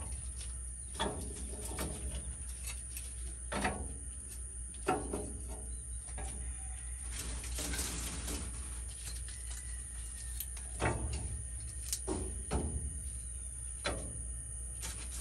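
Split chinaberry (China ball) wood pieces clunking as they are set one by one into a cast-iron skillet on the smoker's burner: a series of separate wooden knocks, a second or more apart.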